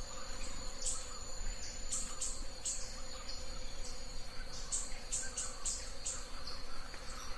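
Insects chirping and buzzing in a steady, high-pitched chorus, with short chirps repeating irregularly over a constant high drone.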